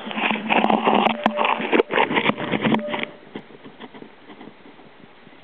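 Water rushing and splashing as the fry are released into the creek, with scattered clicks, cutting off about three seconds in to a quiet background.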